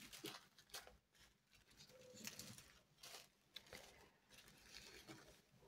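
Faint rustling of small plastic zip-lock bags of diamond-painting drills being handled, with scattered light clicks.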